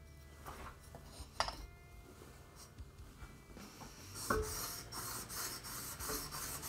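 A steel knife blade being stroked across the wet 3000-grit side of a budget combination whetstone, a fine scraping rasp that starts a little past halfway after a few light clicks of handling.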